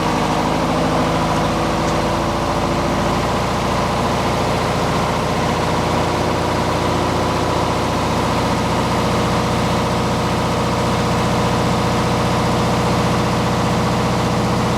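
Onan MEP-003A 10 kW military diesel generator running steadily, its small two-cylinder air-cooled diesel engine at constant speed shortly after a cold start.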